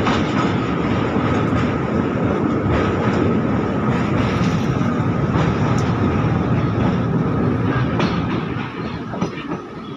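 Passenger train running over a steel truss railway bridge, heard from inside the coach through an open window: a loud, steady rumble of wheels on rails and girders with a thin steady tone above it. The noise drops about eight and a half seconds in as the coach comes off the bridge.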